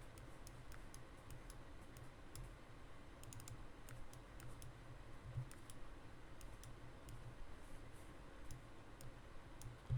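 Faint, irregular clicking at a computer while data is looked up.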